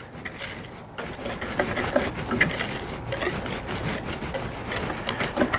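Wire whisk stirring a dry mix of flour and cornmeal in a mixing bowl: a fast, uneven run of scraping ticks as the wires strike and drag along the bowl, getting louder about a second in.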